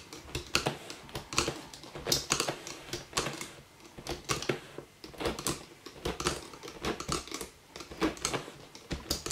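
Loom hook clicking against the plastic pins of a Rainbow Loom as rubber loom bands are hooked and lifted off, a run of irregular light clicks about two or three a second.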